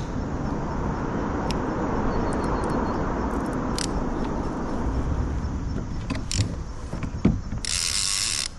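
Spinning reel being cranked, its gears whirring steadily with a few light clicks. A harsher burst comes just before the reeling stops abruptly near the end.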